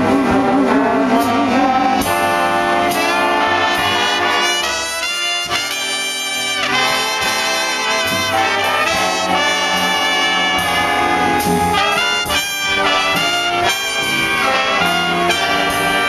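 A big band playing 1940s swing, with saxophones, trumpets, trombones and upright bass. It opens on a held note with wide vibrato, and about two seconds in the full horn sections play together.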